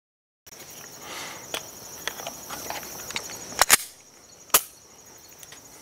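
Clicks and clacks of a Glock 17 Gen5 pistol and its magazine being handled, with a loud sharp double clack a little past halfway and one more sharp click about a second later. A steady chorus of insects runs underneath.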